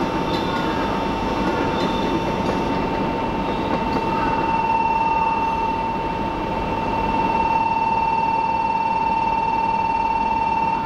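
Platform departure bell ringing as one steady, high tone over the broad hum of a station with a train waiting to leave. The bell stops near the end.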